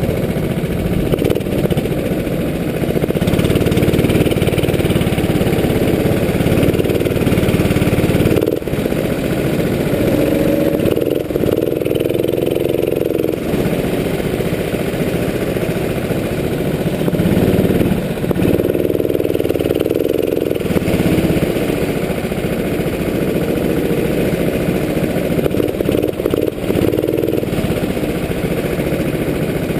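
Onboard sound of a go-kart's engine being driven hard around a track, its pitch climbing as it accelerates and falling as the throttle is lifted for corners. The engine sound drops briefly about a third of the way in.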